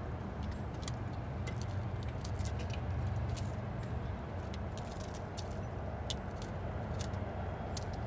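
Steady low outdoor rumble with many irregular sharp clicks and ticks scattered through it.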